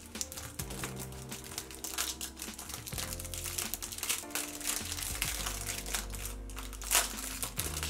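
Crinkling of clear plastic wrapping as a small doll miniature is unwrapped by hand, with one sharper crackle near the end. Soft background music with held notes plays under it.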